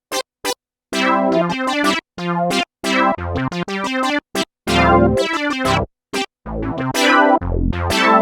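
An Omnisphere 3 software synthesizer preset being auditioned: a few short, clipped notes, then bright chords with a deep bass line entering about three seconds in, each phrase stopping abruptly between gaps.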